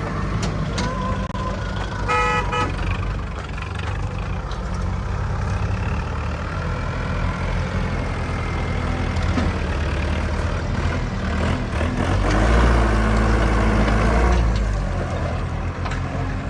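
Heavy diesel machinery engine running, with a short horn toot about two seconds in. The engine gets louder for a couple of seconds about three-quarters of the way through.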